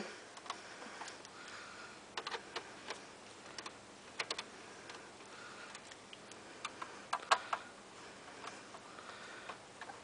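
Faint, irregular clicks and ticks of a Phillips screwdriver working the power-supply retaining screws out of the sheet-metal rear panel of a Dell Optiplex GX520 desktop. The clicks come in small clusters, a few of them sharper than the rest.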